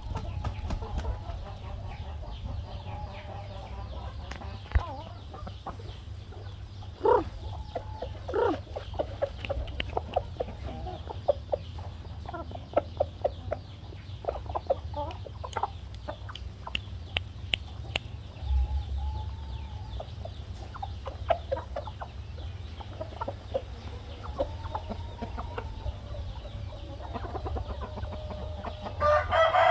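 Roosters and hens clucking softly and repeatedly while they feed, with many short sharp clicks of beaks pecking grain off the ground. A louder call rises near the end.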